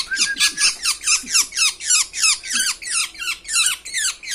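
Caged birds chirping rapidly: a steady stream of short, high, downward-sweeping chirps, about five a second.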